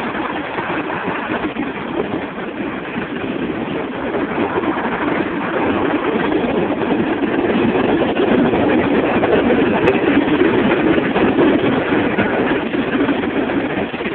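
Norfolk Southern freight train's tank cars, gondolas and boxcars rolling past: a steady rumble of wheels on rail that grows somewhat louder about halfway through.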